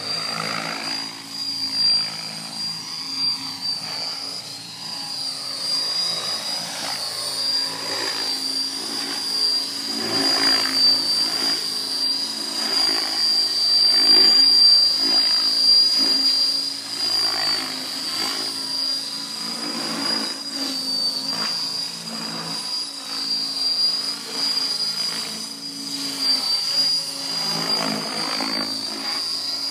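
Large electric radio-controlled helicopter (Logo 800) flying 3D aerobatics: a steady high whine runs under rotor-blade noise that swells and fades repeatedly as the helicopter flips and changes pitch.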